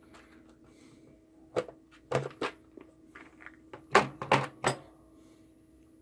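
Hand rummaging in a clear plastic organiser box of solder-seal wire connectors: about six sharp plastic clicks and knocks in two clusters, the loudest about four seconds in, with soft rattling between.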